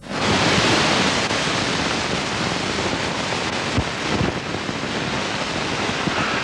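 Steady rushing noise of city street traffic, starting abruptly and holding even, with a few faint low thumps around the middle.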